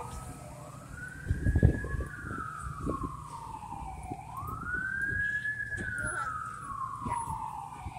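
An emergency vehicle's wail siren. Each cycle rises quickly and falls slowly over about four seconds: two full cycles, with a third starting at the end. Low street rumble runs underneath, with a brief louder burst about a second and a half in.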